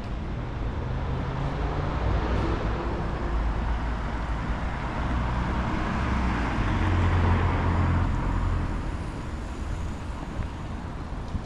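Street traffic: a steady low engine rumble, with a motor vehicle passing close by whose engine and tyre noise swell to a peak about seven seconds in and then fade.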